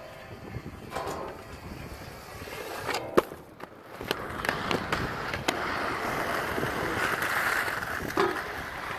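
Hard aggressive inline skate wheels (USD Aeon 60 skates) rolling on concrete, with sharp clacks and knocks from the skates hitting the ground, the loudest about three seconds in. The rolling grows louder and steadier in the second half.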